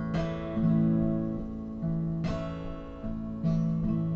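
Guitar accompaniment with no singing: three chords strummed, about two seconds apart and then one second apart, each left to ring and fade.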